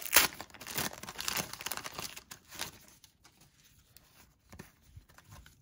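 Paper wrapper of a 1990 NFL Pro Set trading-card pack being torn open and crinkled, a burst of crackling tears over the first two and a half seconds or so. After that come fainter, scattered clicks of the cards being handled.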